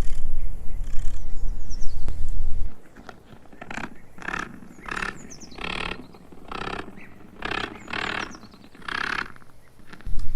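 A loud low rumble for the first couple of seconds, then a spider stridulating: about eight short hissing bursts spread over six seconds. Faint high chirps at the start.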